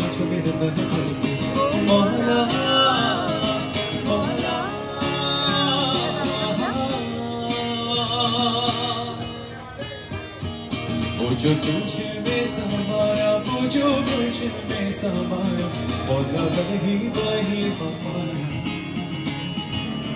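A man singing to his own acoustic guitar, the strummed chords running under the voice.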